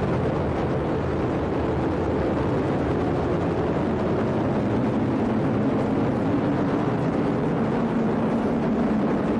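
Atlas V rocket climbing away in the seconds after liftoff, its RD-180 main engine and solid rocket boosters firing. A steady, low rumble of rocket exhaust that holds level throughout.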